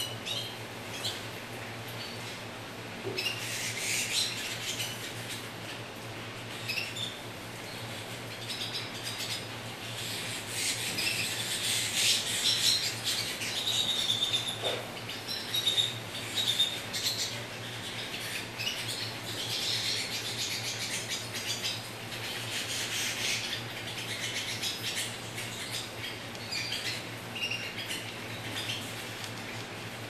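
A flock of canaries chirping and twittering, many short high calls overlapping, busiest and loudest around the middle, over a steady low hum.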